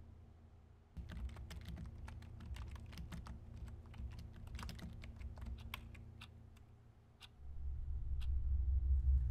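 Fingers typing on a computer keyboard: quick, irregular keystrokes starting about a second in and tailing off near the end. A low rumble swells up over the last two seconds and becomes the loudest sound.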